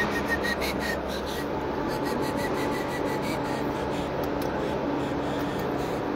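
Steady rushing fan noise from racks of Crown power amplifiers, with light rubbing and ticking of handling noise during the first few seconds.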